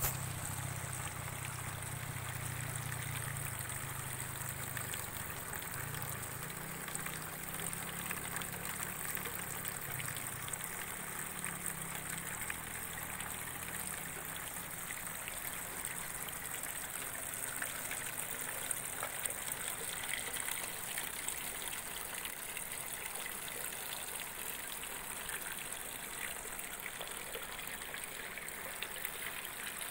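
Steady trickling, rushing water, as nutrient solution runs through hydroponic lettuce channels, with a low hum that fades about six seconds in.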